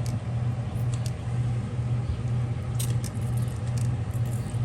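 A few short hissing squirts from a spray bottle of leak-check solution sprayed onto a refrigerant line fitting, over a steady low mechanical hum.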